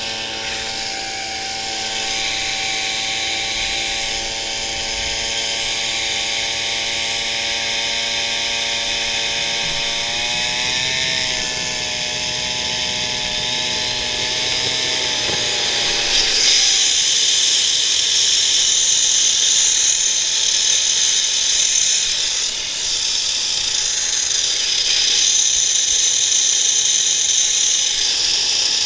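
A homemade turbocharger jet engine running, with a gas leaf blower held to the compressor inlet. The blower's small engine drones at a steady pitch under the turbo's high whine. About sixteen seconds in the blower drone stops and the jet engine runs on its own, louder, as a high-pitched whine and hiss.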